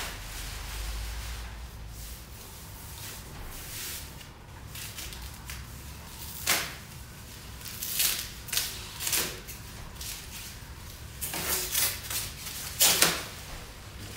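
Bubble wrap and plastic film rustling and crinkling as a car spoiler is unwrapped by hand, with a string of sharp crackles in the second half.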